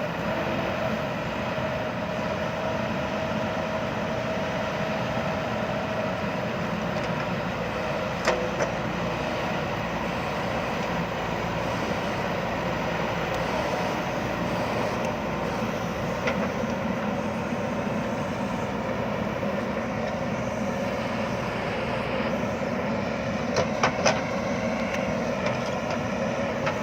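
JCB backhoe loader's diesel engine running steadily as the machine works in mud, with a few sharp metallic clanks: one about eight seconds in and two close together near the end.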